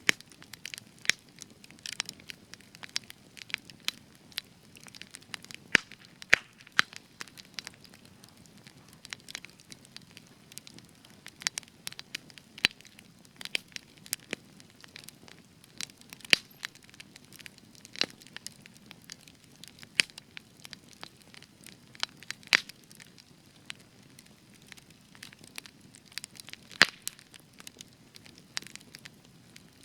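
Spruce wood campfire crackling, with sharp irregular pops and snaps over a low steady hiss of burning.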